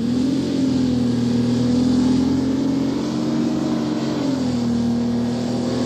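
Two-stroke Detroit Diesel 6V53 V6 of an AGTruck working across a steep slope: a steady engine drone whose pitch lifts slightly just after the start and drops back about four seconds in.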